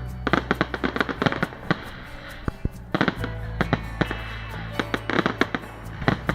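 Fireworks display: many sharp bangs and crackles going off in quick clusters, over hip-hop music with a steady deep bass.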